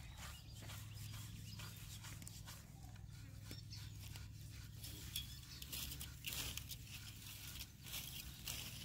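Faint, irregular scratchy strokes of a stiff hand brush scrubbing a painted grave marker board, over a steady low hum.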